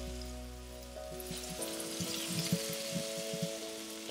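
Marinated fish fillets sizzling as they fry in a pan of onion masala, with a few soft knocks as pieces go in, under background music of held notes.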